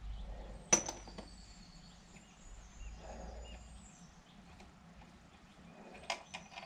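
A single sharp metallic clink about a second in, followed by a few lighter knocks, as the metal parts of a lathe chuck are handled; birds chirp faintly throughout.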